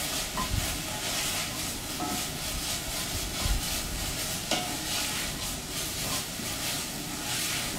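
Sliced onions sizzling gently in olive oil in a pot as a wooden spoon stirs them, with repeated scraping strokes and a few light knocks of the spoon. The onions are being sweated, nearly translucent but not browned.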